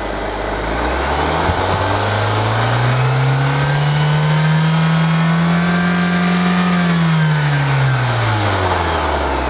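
Car engine revved by hand at the throttle from idle: engine speed climbs smoothly over about three seconds, holds high for a few seconds, then falls back toward idle near the end. The revving is done to check that the mass air flow sensor's output voltage rises with engine speed.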